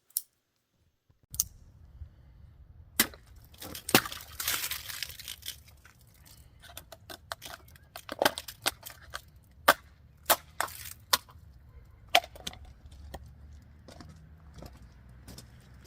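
A serrated switchblade being stabbed and slashed into a test target: irregular sharp knocks and cracks, with a longer stretch of scraping, cutting noise about four seconds in.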